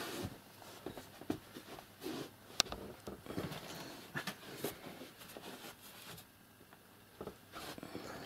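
Light handling and movement noises in a small room: scattered soft knocks, taps and rustles, with one sharp click about two and a half seconds in.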